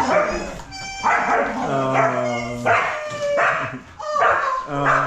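Pet dogs whining, yelping and barking in excitement, greeting their owner on her return after days away.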